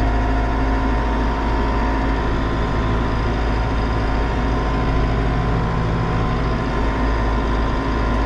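Diesel tractor engine running steadily at a fixed hand-throttle setting, under load while driving a PTO-powered ridging rotary tiller through the soil.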